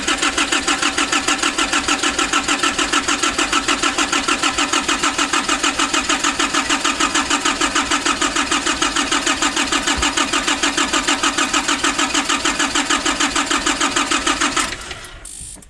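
Starter cranking the diesel engine of a 2005 Nissan Urvan with an even, rapid pulsing, the engine turning over but not firing while the fuel system is still being bled of air after new fuel lines. The cranking stops about a second before the end.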